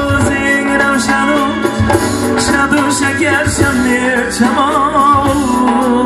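Live Uzbek pop band music with a steady drum beat and a melody line that wavers in quick ornaments.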